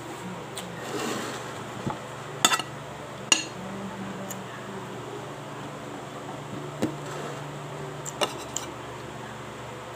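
Metal spoon clinking and scraping against a plate of rice and vegetables, a handful of sharp clinks, the loudest about two and a half and three seconds in, over a steady low hum.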